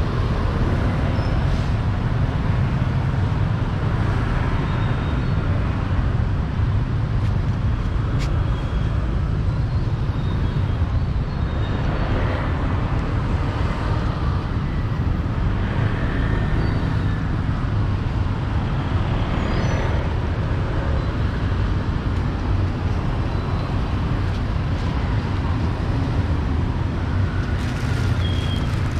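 Steady street traffic noise with a constant low rumble.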